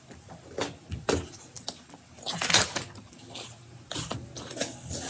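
Slime being pulled out of its container by hand: scattered sticky squishes and scrapes, with a few sharp knocks of the container and a louder scraping rustle about halfway through.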